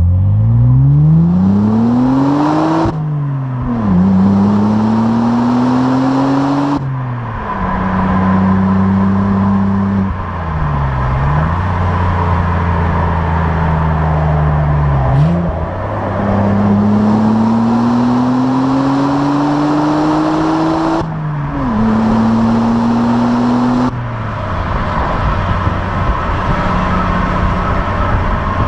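Opel Insignia OPC's turbocharged 2.8-litre V6 on its stock exhaust, accelerating through the gears. The engine note climbs and drops back at each upshift, about 3, 7 and 21 seconds in, then settles to a steady drone near the end.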